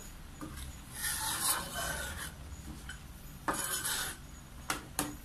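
Metal spatula scraping across a metal wok while stirring curry: two scrapes, the first about a second long, then two short knocks of the spatula on the wok near the end.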